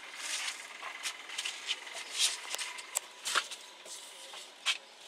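Plastic carrier bag rustling and crinkling in the hands, in irregular bursts with a few sharper crackles and scrapes.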